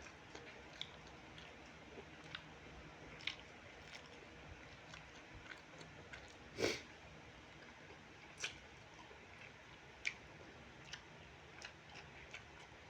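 Faint chewing and mouth sounds of someone eating fried rice with chicken liver and gizzard, with scattered soft clicks and one sharper knock about six and a half seconds in.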